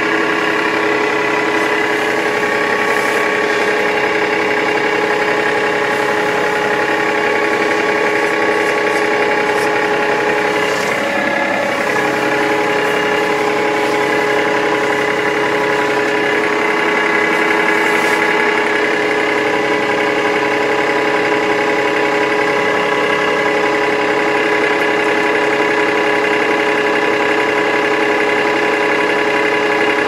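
Massey Ferguson tractor's diesel engine idling steadily, heard from inside the cab, with a brief wobble in its note about eleven seconds in.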